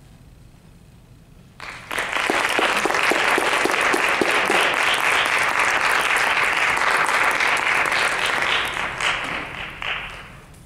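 Audience applause: after a short hush, dense clapping breaks out about two seconds in, holds steady, and dies away near the end.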